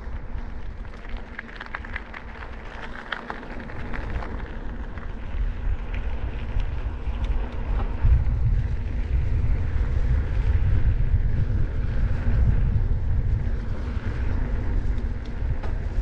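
Wind buffeting the handlebar camera's microphone as a bicycle rolls downhill on asphalt, with tyre noise from the road, growing louder about halfway through as speed builds. A few light ticks come in the first few seconds.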